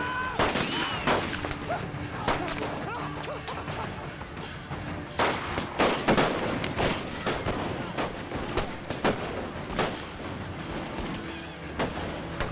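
Rifle volley fire: a dozen or so sharp shots at irregular spacing, some in quick pairs, over background music with a held low note.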